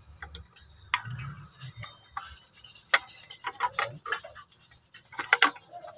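Irregular clicks and rubbing of hard plastic as a Nissan X-Trail fog light assembly and its wiring connector are handled and worked free by hand. The sharpest clicks come about a second in, about three seconds in, and in a quick cluster near the end.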